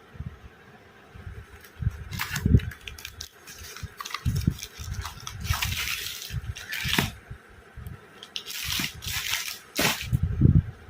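Packaging being handled and opened: irregular rustling and crinkling in short bursts, with soft bumps of items set down on a table.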